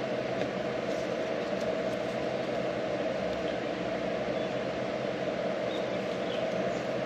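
Steady background hum and hiss, like a fan running, with a few faint light ticks.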